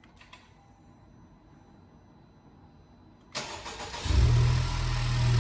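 Honda Civic Type R (FK8) turbocharged 2.0-litre four-cylinder starting up, fitted with a new PRL high-flow intake: the starter cranks about three seconds in, the engine catches within a second and settles into a steady idle.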